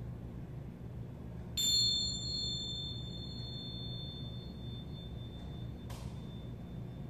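Small hand cymbals (tingsha) struck together once, ringing a high, clear tone that slowly fades over about four seconds, with a light metal clink near the end.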